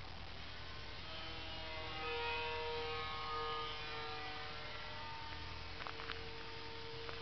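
Radio-controlled model airplane's motor and propeller humming steadily as it flies overhead, swelling about two seconds in with a slight drop in pitch, then easing off a little.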